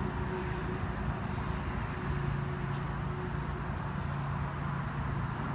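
A steady low mechanical hum with a constant pitch over faint outdoor background noise; a higher steady tone fades out about halfway through.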